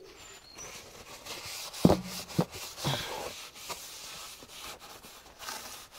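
Paper towel being rubbed over the face of a new brake disc, cleaning off its residue with brake cleaner, in irregular strokes. A few sharp knocks come with the handling, the loudest about two seconds in.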